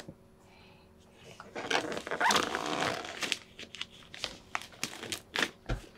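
Something crinkly being handled by hand. A dense crinkling rustle starts about one and a half seconds in, then breaks into a run of short, sharp crackles.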